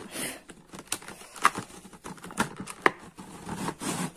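Hard plastic packaging clicking and snapping irregularly under long fingernails as the clear plastic lid of an eyeshadow palette tray is worked loose, with a few louder clicks among them.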